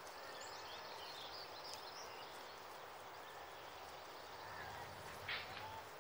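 Faint outdoor ambience: a soft steady hiss with a few faint high chirps, and a brief sound about five seconds in.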